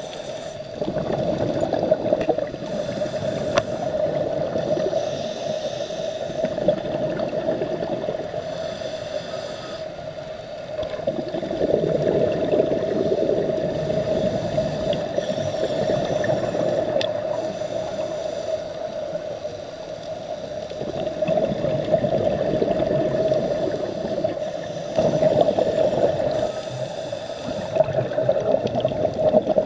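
Underwater breathing through a scuba regulator: swells of rushing, gurgling exhaled bubbles every several seconds, with patches of high hiss, over a steady hum.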